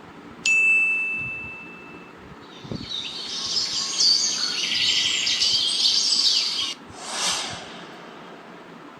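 A single bright ding that rings out and fades over a second or so, then dense high bird chirping for about four seconds that cuts off abruptly, then a short whoosh.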